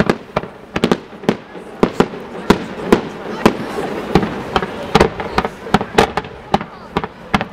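Fireworks display: a rapid, irregular string of sharp bangs, about three a second, from comets and shells fired in fans, over a continuous hiss between the reports.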